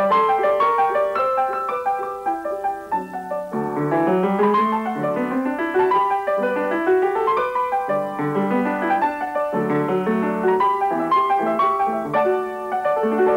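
Background piano music playing quick runs of notes.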